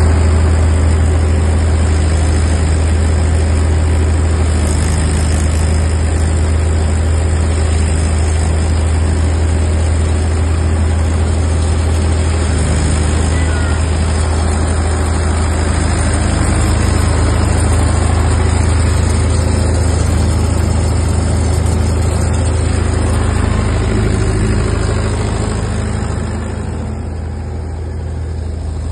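Mahindra 475 diesel tractor engine running steadily under load while it drives a paddy thresher, a deep hum mixed with the thresher's constant whirring noise. It gets a little quieter near the end.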